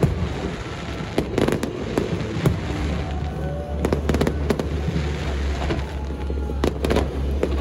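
Aerial fireworks going off: sharp bangs and crackling bursts, several coming in quick clusters, over background music.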